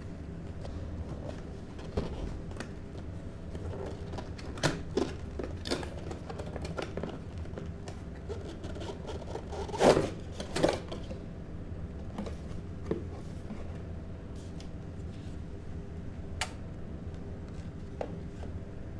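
Handling noises of a cardboard box being opened and a plastic RC transmitter lifted out of it: scattered scrapes, rustles and light knocks, loudest about ten seconds in, over a steady low background hum.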